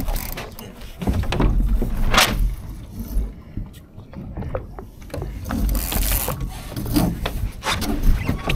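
Laser sailing dinghy under way: irregular clicks and knocks from the boat's fittings and rigging over a low, uneven rumble.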